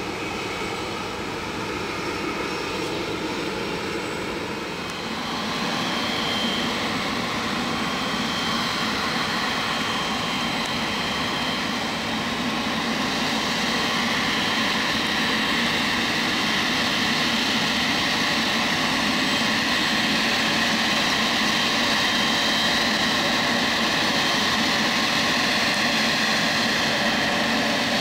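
Boeing 777-300ER's GE90 turbofan engines running at low power while taxiing, a steady jet whine and rush. It grows louder about 5 seconds in and again after about 13 seconds as the aircraft comes closer.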